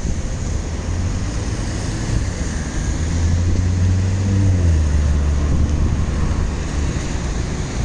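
Translohr STE6 rubber-tyred tram approaching, a steady low rumble with its motor whine gliding down in pitch about four seconds in.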